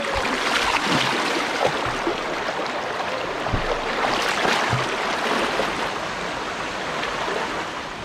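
Fast river water rushing over a small waterfall and rapids, a steady full rush, with a few soft splashes as a person wades and climbs through the current.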